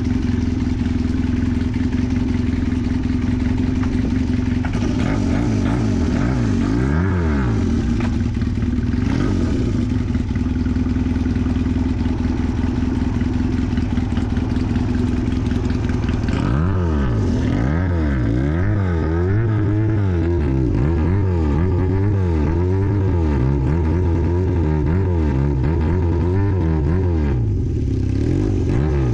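Honda CB400 motorcycle engine running at idle, then revved in quick rhythmic throttle blips that rise and fall in pitch: the Zokusha-style 'call'. There is a short run of revs a few seconds in, and a long run of rapid blipping from a little past halfway until just before the end.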